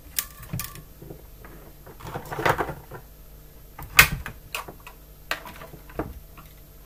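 Handling clicks, knocks and rustles as a small programmer adapter board and its ribbon cable are unplugged from a laptop motherboard and set down, with a short rustle about two seconds in and the sharpest click about four seconds in.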